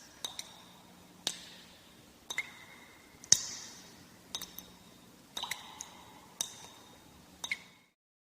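A series of small, sharp glassy clinks, about one a second and sometimes in quick pairs, each ringing briefly at a different pitch; they stop shortly before the end.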